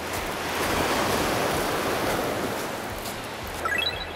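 Surf washing onto a pebbly beach as a steady rush that swells about a second in and then eases. Near the end comes a short rising chime of brief tones, an edited sound effect.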